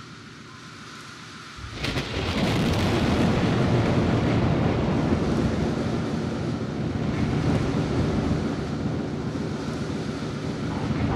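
Thunderstorm: a sudden thunderclap about two seconds in, then a long rolling rumble of thunder. Faint musical tones begin to come in near the end.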